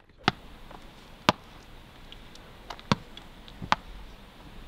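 A small ball bounced hard and caught, four sharp smacks at uneven intervals of about one to one and a half seconds, with fainter taps between them.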